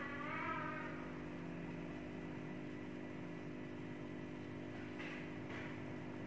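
Faint steady mechanical hum, typical of an aquarium air pump feeding sponge filters, with a brief wavering cry in the first second.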